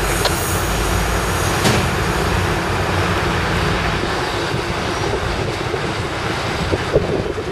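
Diesel engine of a MARC EMD GP40WH-2 locomotive working as the commuter train starts to pull away, a steady low rumble. A couple of brief sharp knocks come through, one early and one near the end.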